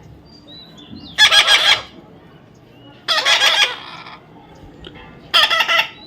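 A pet parrot calling three times, each call a harsh squawk about half a second long, roughly two seconds apart.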